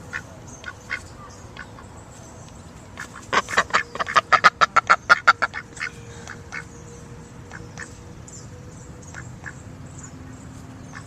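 Duck quacking: scattered single quacks, then a rapid loud run of quacks, about six a second, from about three seconds in to about five and a half, then scattered quacks again.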